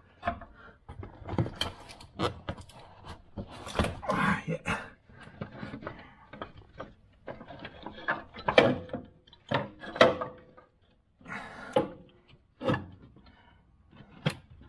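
Irregular metallic knocks, clicks and scrapes of a hand and tools working at the inner bolt of a Land Rover Discovery 3's front upper control arm, reached past the shock tower in a tight space. The sharpest knocks come in the second half.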